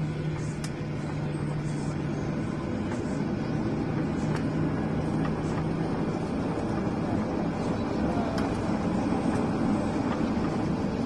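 Boeing 777 jet engine and airframe noise as a steady rumble and hiss during the takeoff sequence. A low hum fades out about halfway through, and the rumble builds slightly toward the end.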